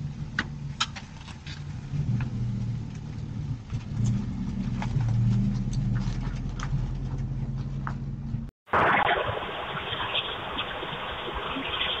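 A vehicle engine running steadily nearby, with scattered light clicks. After a hard cut about eight and a half seconds in, a steady noisy hiss follows.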